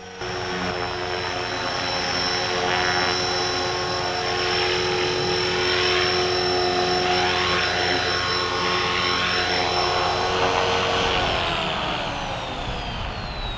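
Align T-Rex 450 electric RC helicopter sitting on the ground with its brushless motor and main rotor running at a steady whine and rotor rush. About three-quarters of the way through, the whine falls steadily in pitch as the rotor spins down.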